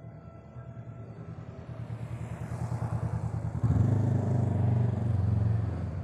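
A motorcycle engine running as it comes closer, putting out an even low pulsing that grows louder, peaks from about two-thirds of the way in, then falls away near the end.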